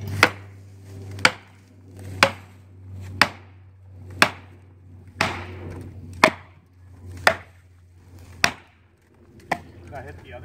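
Steady hammer strikes driving a felling wedge into the back cut of a large poplar, about one sharp blow a second, about ten in all, to lift the tree and tip it over.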